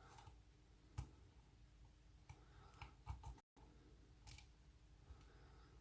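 Faint, scattered clicks and ticks of a lock pick and tension wrench working the pins of a night latch lock held in a false set.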